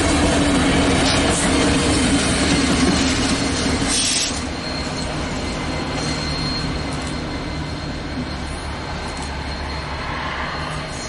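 A coal train's hopper cars rolling past with a heavy rumble and clatter; about four seconds in the last cars clear and the noise drops. What is left is the rear distributed-power diesel locomotive's engine hum and a thin, high wheel squeal, fading as it draws away.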